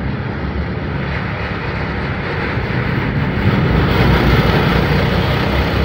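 A pack of small youth dirt-track race cars running their engines, growing louder as they pass close by about four seconds in.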